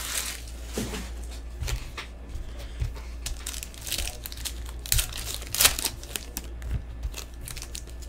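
Foil wrappers of Topps Series 1 baseball card packs crinkling and tearing as they are opened by hand, in scattered short crackles with a couple of louder ones about five seconds in.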